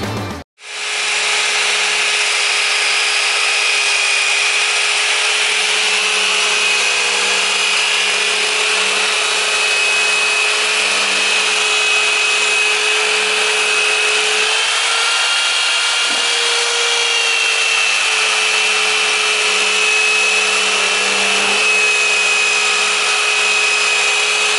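A running motor, steady and loud, with a constant whine over a hiss of rushing air; it starts abruptly about half a second in, and its pitch wavers slightly midway.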